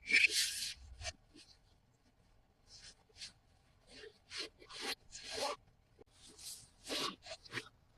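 Hands handling toy packaging and small toy pieces: a string of short, scratchy rustles and light clicks at irregular intervals, the loudest a rustle in the first half-second.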